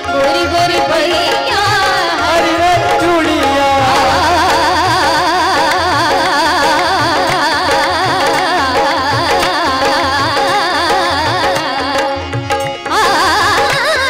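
A woman singing a devotional song to harmonium, keyboard and tabla accompaniment, the tabla keeping a steady beat under a wavering melodic line. The music dips briefly near the end, then comes back in.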